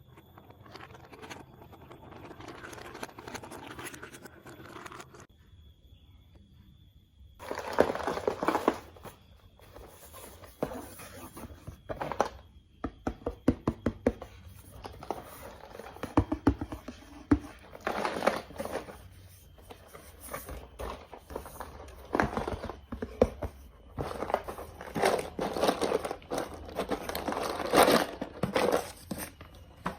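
Plastic building blocks and their packaging being handled: bursts of crinkling with runs of small sharp plastic clicks and rattles.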